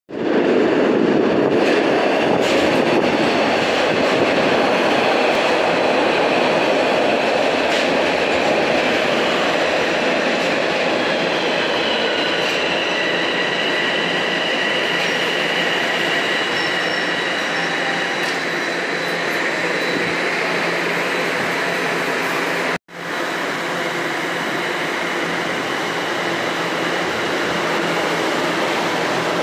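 Toronto Rocket subway train running along a station platform: a steady loud rumble of wheels on rail, with a faint high whine that steps in pitch partway through. A sudden break about three-quarters of the way in gives way to another train moving along the platform with the same rumble.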